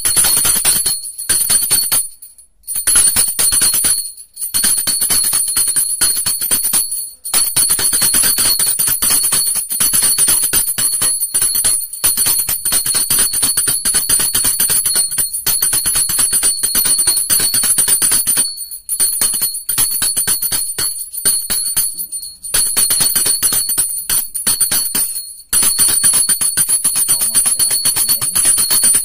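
Puja hand bell rung rapidly and continuously during worship, the clapper striking many times a second over a steady high ringing. There are several brief pauses, the longest about two seconds in.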